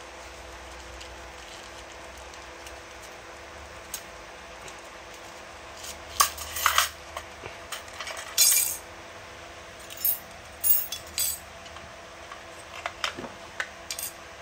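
Steel reciprocating saw blades clinking and clattering in short, scattered bursts as they are handled and set down on a tile floor, over a steady low hiss.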